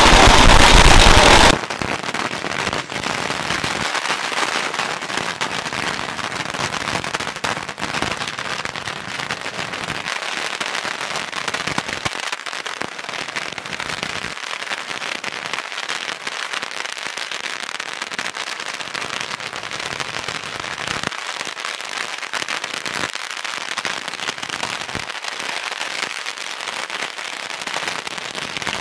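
Long strings of firecrackers going off in a dense, unbroken crackle of many rapid small bangs. Much louder for the first second and a half, then a steady crackle.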